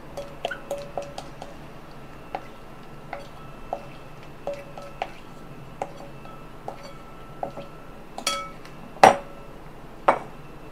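Wooden spoon scraping and tapping against a ceramic bowl while scooping soaked glutinous rice, a string of light clicks and taps. A few louder knocks come near the end, the loudest about nine seconds in, as the spoon knocks the bowl and is laid down in it.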